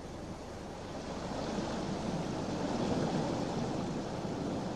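Sea surf breaking on a flat shore: a steady rushing wash of waves, swelling a little louder around the middle.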